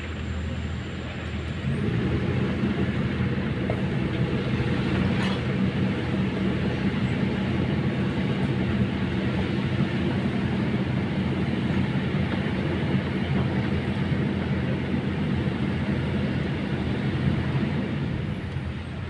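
Kobelco crawler excavator's diesel engine running with a steady low hum; about two seconds in it revs up and runs louder while the machine digs and swings, then eases back near the end.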